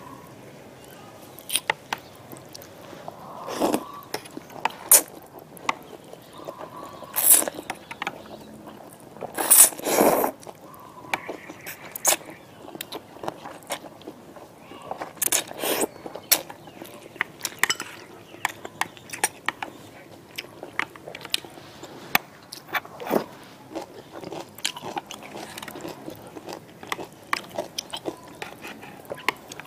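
Close-miked eating of spicy instant noodles: chewing with a steady run of wet mouth clicks and smacks, and several louder slurps of noodles, the longest about ten seconds in.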